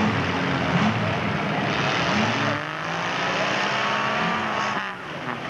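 Old pickup truck's engine running hard as it churns through a mud pit. It revs higher from about halfway in, then drops off sharply near the end.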